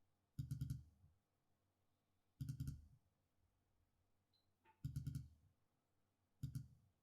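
Apple Magic Mouse 2 button clicking in four short runs of several rapid clicks each, about two seconds apart.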